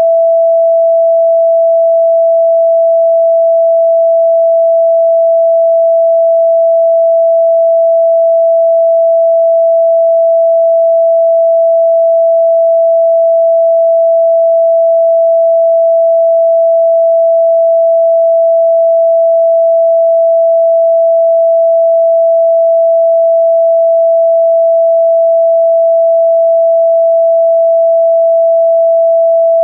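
Electronic meditation tone: a single pure sine tone at one steady mid pitch, held unbroken and unchanging, with no other sound.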